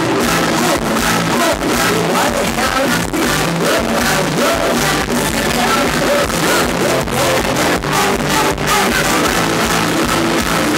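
Loud live Thai ramwong band music with a melody line over a steady bass and drum beat.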